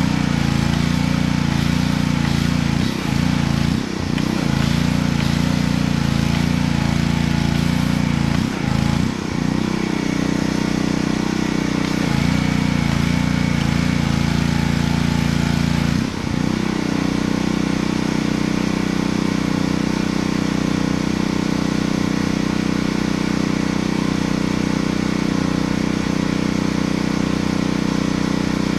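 Pressure washer's small engine running steadily. Its note dips briefly and recovers several times in the first half, then holds steady.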